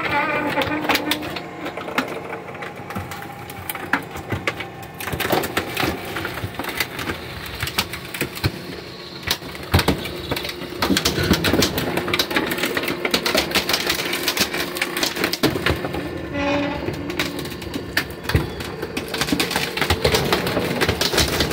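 Hydraulic garbage compactor crushing a wooden dresser: the wood cracks and splinters many times over, more thickly from about five seconds in, over a steady hum from the machine.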